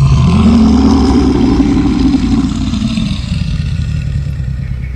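Bear giving a deep, heavy growl, loudest in the first two seconds and slowly dying away.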